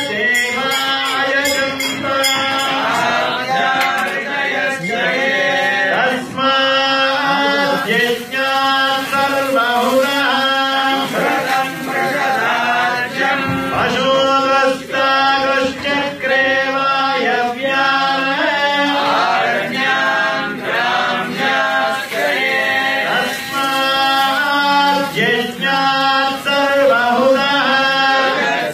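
Group of mostly male voices chanting together in a steady, repeating rhythm: Hindu devotional chanting.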